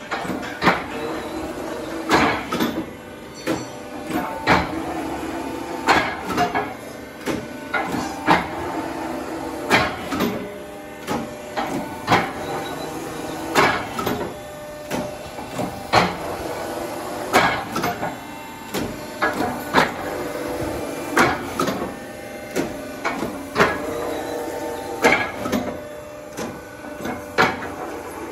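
40-ton hydraulic press running: the hydraulic power pack's electric motor and pump hum steadily while the press cycles, clanking sharply about every one and a half to two seconds.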